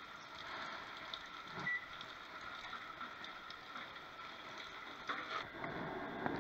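Floured Dungeness crab pieces frying in a pot of hot oil: a steady sizzle with scattered small crackles, and a few louder handling rustles after about five seconds.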